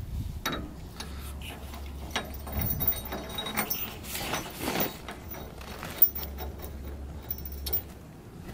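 Scattered light metallic clicks and clinks of bolts and a brake caliper bracket being fitted by hand to a car's front spindle.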